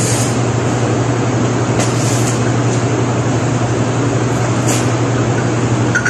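Steady low hum over an even rushing noise, with a couple of faint clicks about two seconds and about five seconds in.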